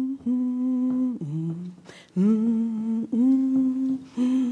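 A woman's unaccompanied voice humming a slow wordless tune in about four long held notes, dipping briefly lower about a second in and again near the end.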